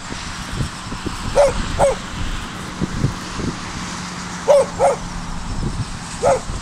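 A dog barking: five short, sharp barks, two quick pairs and then a single one near the end.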